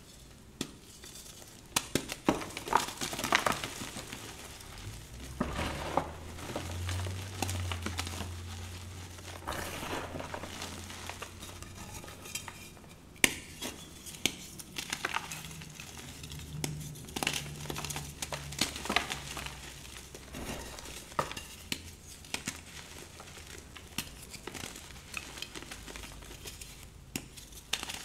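Reformed Spri gym chalk being crushed and crumbled between gloved fingers: irregular dry crunches and crackles as the blocks break, with powder spilling. The blocks set softer than expected, so it crumbles more than it snaps.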